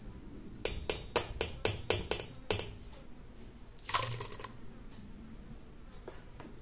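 A steel spoon clicks sharply against a metal vessel while soaked boondi is strained out of its water, in a quick run of clicks about four a second. About four seconds in comes a short wet splash as the boondi drops into the curd.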